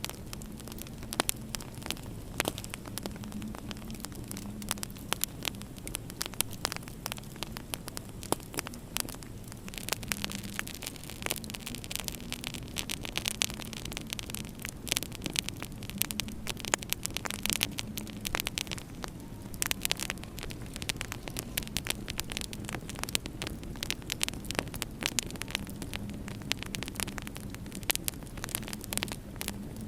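Wood fire in a fireplace crackling, with many small irregular pops, over a steady low hum.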